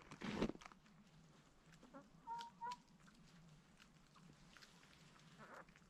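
Chickens clucking softly: two short calls about two and a half seconds in and a falling call near the end, after a brief rustle at the start.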